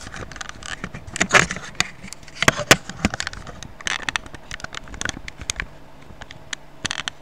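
Handling noise: irregular clicks, knocks and scrapes as the plastic shell of a compact bubble-jet printer is gripped and moved by hand. The noises stop abruptly near the end.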